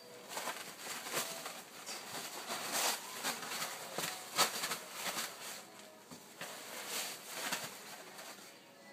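Paper towels rustling and tearing as a cat claws, bites and kicks at the roll, in irregular scratchy crackles that are loudest about three and four seconds in.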